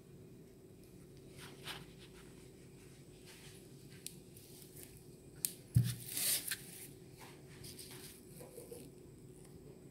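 Coconut husk being pried and torn apart by hand, with scattered scratchy rips of fibre. A little past halfway, a sharp knock is followed by a louder tearing rasp.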